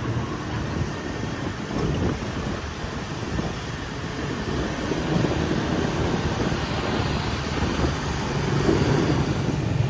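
Steady wind rush and rumble heard from a moving motor scooter in city traffic: air buffeting the microphone over the hum of the engine and tyres.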